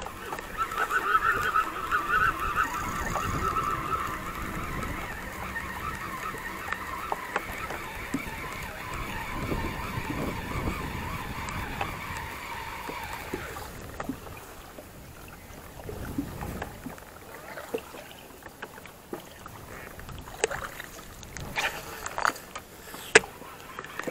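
Baitcasting reel being cranked on a lure retrieve, a steady whirr from the gears that stops a little past halfway. After that come a few light, scattered clicks.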